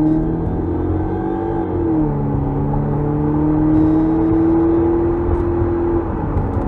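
THOR active exhaust loudspeaker on a BMW 320i playing its synthesized Porsche Panamera engine sound while the car accelerates. The engine note climbs in pitch, drops sharply about two seconds in as the car shifts up, climbs slowly again and drops once more near the end.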